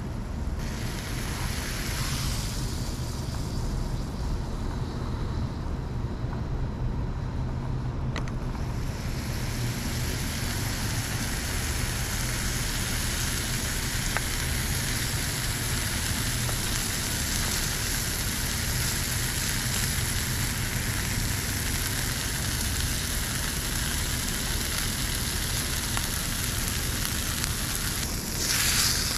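Hamburger patty and onions sizzling in a small backpacking frying pan over a steady low rumble. The sizzle grows fuller about nine seconds in and is briefly louder near the end.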